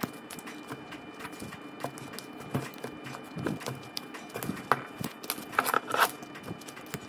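Steel-jawed pliers clicking and scraping against the steel casing of a lithium AA battery as the casing is gripped and rolled back, with handling rustle from work gloves. Irregular small clicks throughout, with a quick cluster of louder clicks near the end.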